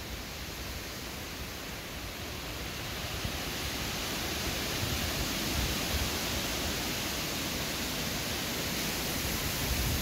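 Wind blowing through trees, a steady rush of rustling leaves that swells gradually from about three seconds in.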